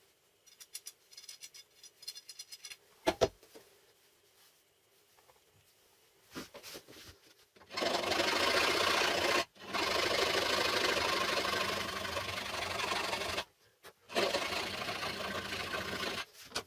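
A power tool working wood, run in three stretches of a few seconds each with short breaks, preceded by light clicking and a sharp knock.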